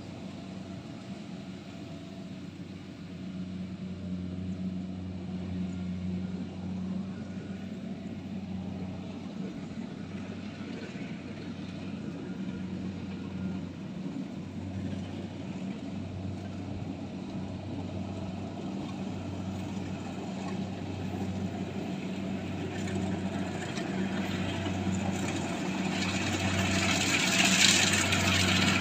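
Engine of a rice harvesting machine running steadily with a low drone that takes on a slow, regular throb about halfway through. A hiss rises and the sound gets louder over the last few seconds.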